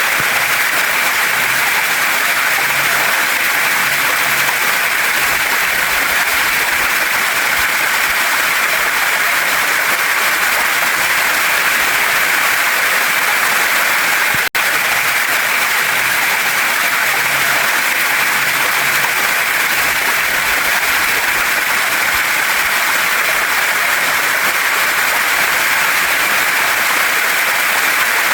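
Waterfall and mountain stream rushing steadily over rocks, an even hiss of water. The sound drops out for a split second about halfway through.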